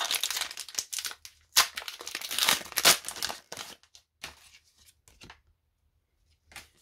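Pokémon booster pack wrapper crinkling and tearing open, then a few short rustles and taps as the cards are taken out.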